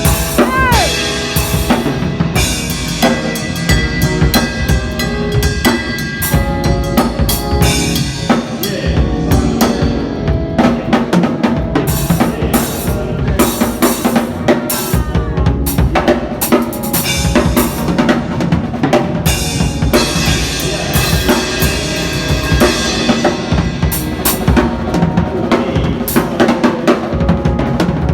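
Drum kit played in a busy solo with dense kick drum, snare and rimshot strokes. Sustained keyboard notes run underneath.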